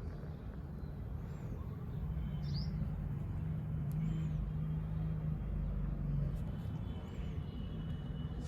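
A steady low hum that grows louder through the middle and then eases off, with a bird chirping three or four times over it.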